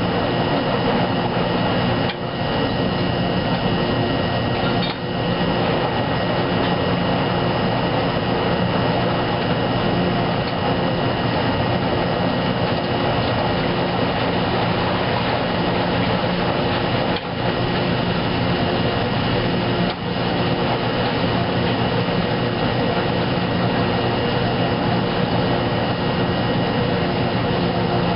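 Wascomat Junior W73 commercial front-load washer tumbling its load in the drain step, motor and drum running steadily with a thin high whine and water sloshing. The sound dips briefly a few times.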